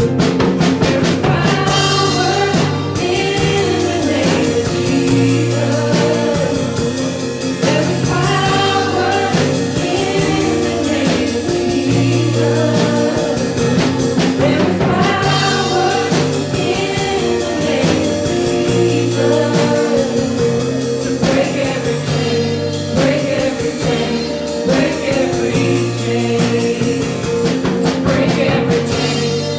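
Live worship band playing and singing: a man and several women singing into microphones over acoustic and electric guitars, with a steady bass line under the chords.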